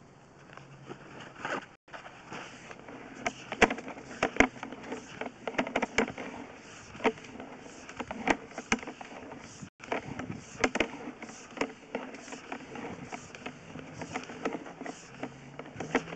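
Sewer inspection camera being pushed along the line: irregular sharp clicks and knocks, about one or two a second, over a faint low hum.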